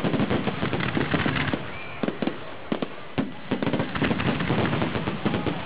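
Aerial fireworks shells bursting in quick succession: several sharp bangs a second, overlapping, over a continuous crackling hiss.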